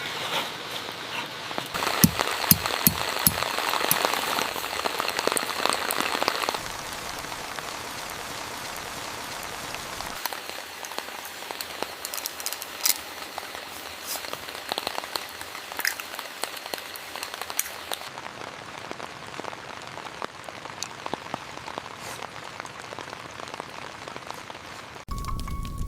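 Heavy rain falling, with many individual drops striking a surface sharply. It is loudest for the first several seconds, then changes abruptly in tone a few times.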